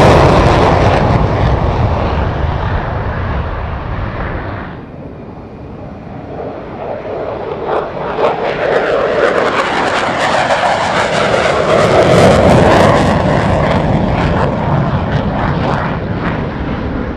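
An F-16 fighter's jet engine is heard in a low pass, loud and fading. After a cut about five seconds in, a second pass builds to its loudest around twelve seconds, with a harsh crackle, then fades as the jet climbs away with its afterburner lit.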